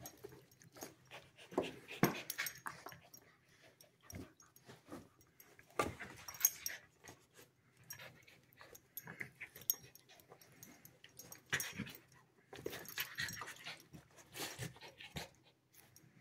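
A husky puppy and an adult dog play-fighting: scuffling of paws and bodies with short, irregular dog noises.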